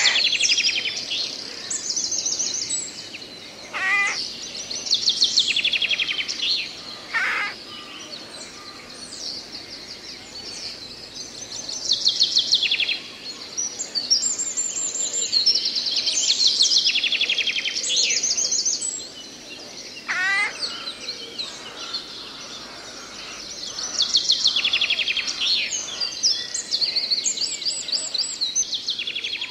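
Songbirds singing in woodland: high, fast trilled phrases repeated every few seconds, with a few shorter single calls between them, over a faint steady background hiss.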